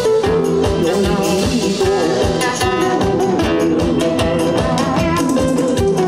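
Korean pop song played over loudspeakers, with live janggu drums and cymbals struck in time to a quick, steady beat.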